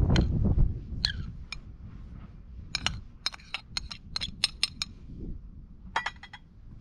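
Metal spoon clinking and scraping against a ceramic plate and bowl as boiled potatoes are spooned off the plate into the bowl. There is a quick run of sharp clinks in the middle and a few more near the end. A low rumbling noise in the first second fades away.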